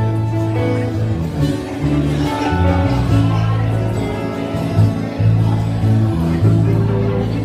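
Live acoustic band music: a strummed acoustic guitar and a second guitar over held low bass notes, with singing.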